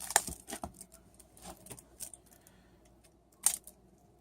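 Cardboard and cellophane packaging of a trading-card box being pried and torn open by hand: sharp crackles and snaps, clustered in the first second, with one loud snap about three and a half seconds in.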